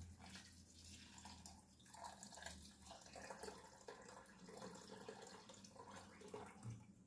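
Faint kitchen handling sounds: small irregular clicks and taps with a light dripping, watery quality.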